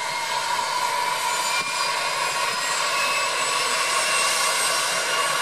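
A de Havilland Canada DHC-3 Otter floatplane's turboprop engine running with the propeller turning, a steady engine noise with a high whine, growing slightly louder.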